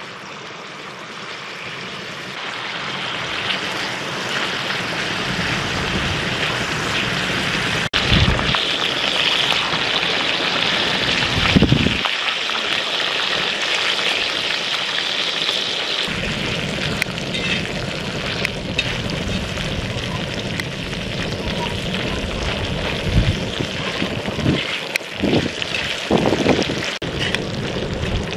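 Bacon sizzling and spitting on a hot cast-iron pot-lid griddle, the frying building up over the first few seconds and running on steadily. Gusts of wind rumble on the microphone now and then.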